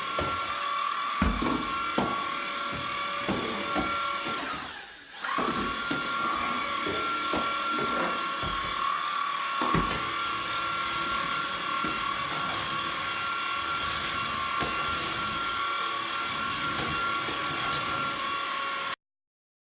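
Tineco A10 Hero cordless stick vacuum running with a steady high whine. About five seconds in it drops and comes back up, and scattered knocks and ticks sound in the first ten seconds. It cuts off suddenly near the end.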